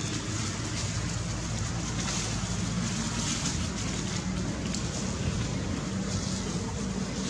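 Steady rumble of wind on the microphone, with faint rustles over it.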